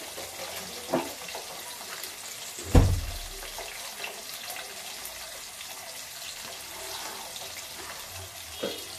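Potato cubes frying in plenty of oil in a steel pan, a steady sizzle. One low thump comes just before three seconds in.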